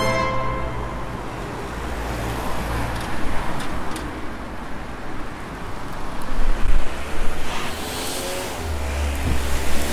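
Street traffic: cars passing on a nearby road, rising and falling as each goes by.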